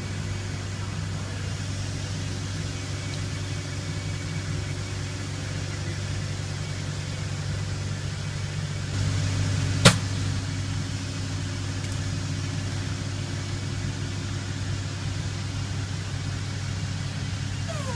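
Steady low workshop hum of several tones, a little louder from about nine seconds in, with one sharp click just before the ten-second mark.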